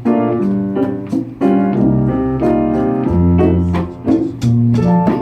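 Piano playing the slow introduction to a Latin ballad in bolero tempo, struck chords and single notes left to ring, with low notes coming in about two seconds in.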